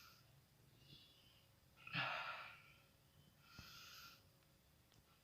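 A person taking slow, deep breaths, faint hissing breaths in and out with pauses between them, the loudest about two seconds in. Deep-breathing phase of a deep-breath and effective-cough exercise.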